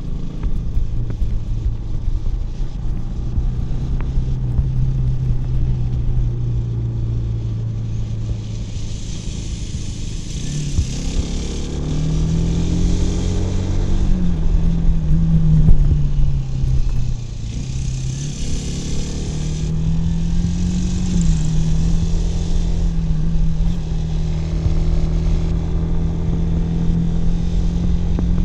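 Kawasaki W175's air-cooled single-cylinder engine and exhaust under way. It runs steadily at a lower pitch, revs up about a third of the way in, drops back briefly, picks up again and then holds steady at the higher pitch.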